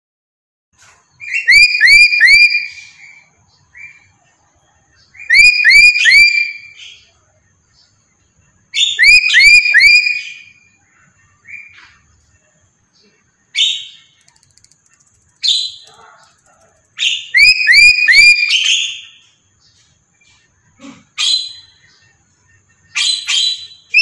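Crimson rosella calling: bursts of three or four quick, rising whistled notes, repeated every few seconds.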